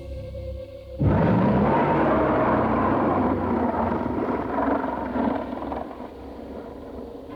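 Tyrannosaurus roar sound effect: a sudden loud, rough roar about a second in that goes on for several seconds and slowly fades, over background music.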